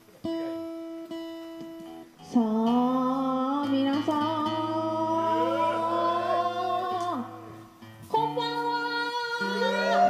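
Live acoustic guitar with a woman singing into a microphone. A guitar chord rings at the start, and her voice comes in about two seconds in with long held notes. The voice breaks off briefly near eight seconds and then resumes.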